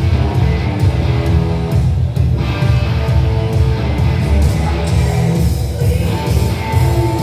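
Hard rock music with electric guitar, played loud through a car audio system under test, with heavy, booming bass.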